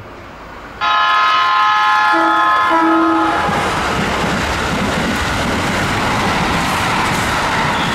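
Keikyu train horn sounding one long blast of about two and a half seconds, followed by the steady rumble and wheel clatter of the train running past.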